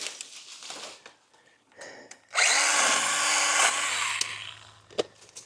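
Battery-powered Stihl mini pruning chainsaw runs in one short burst of about a second, then winds down. Brush rustles before it, and a few sharp clicks follow near the end.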